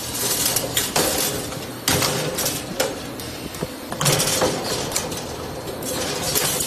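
Automatic 2D servo wire bending and butt welding machine running: a steady hum under irregular sharp metallic clacks as it bends and clamps the steel wire, with the butt weld flashing near the end.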